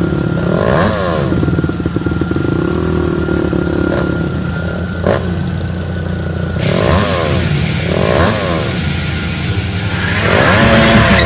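An engine running steadily and revved up and down several times, with a sharper rise in level near the end.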